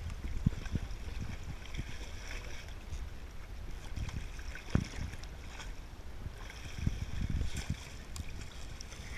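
Water splashing and sloshing against a boat hull as a hooked sailfish thrashes at the surface alongside, with a few dull knocks, the sharpest about halfway through.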